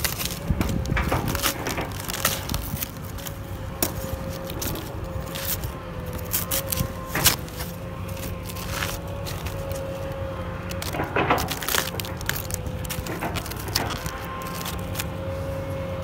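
Napa cabbage being trimmed with a knife: the crisp leaves crack and snap as they are cut and pulled away from the head. The crunches come irregularly, with one sharp crack about seven seconds in and a quick cluster of them around eleven seconds.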